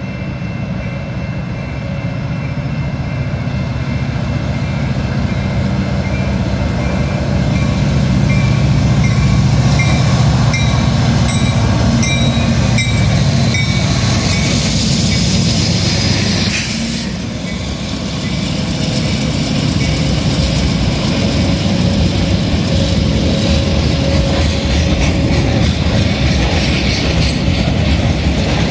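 Diesel freight locomotive passing close by, its engine rumble building to a peak and falling away after about sixteen seconds, with a bell dinging repeatedly in the first half. Then a string of loaded freight cars rolls past with a steady rhythmic clatter of wheels over the rail joints.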